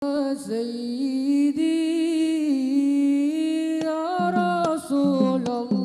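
Unaccompanied vocal music: a slow melody sung in long held notes that glide from one pitch to the next with a slight waver.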